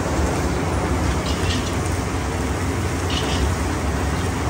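Automatic fried rice machine running: a steady low mechanical rumble as its metal stirring arms churn rice around the steel wok, with a couple of short brighter scrapes of metal against the wok.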